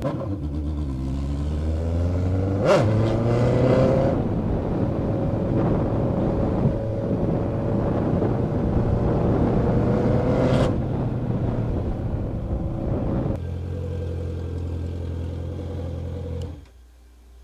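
Honda CBR650F inline-four with a straight-pipe exhaust revving up over the first few seconds, then running at high revs, with sharp cracks about 3 and 10 seconds in. After the second crack the revs fall, settle at a lower steady note, and the engine sound drops away near the end.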